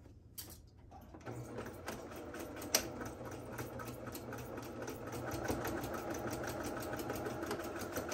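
Electric sewing machine stitching a seam: a steady motor hum with a fast, even ticking of the needle, starting about a second in and louder in the second half. There is one sharp click near three seconds in.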